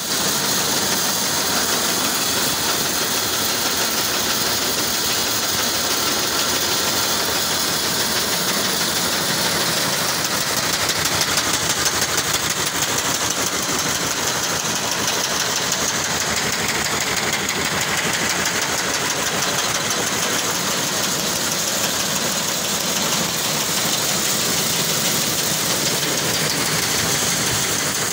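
Electric maize seed cleaner running steadily, its sieve screens shaking and maize kernels rattling over the perforated screens and down the chute.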